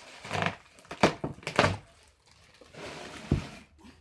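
Cardboard shipping box and packaging being handled: a few short scraping, rustling knocks, the loudest about a second and a half in.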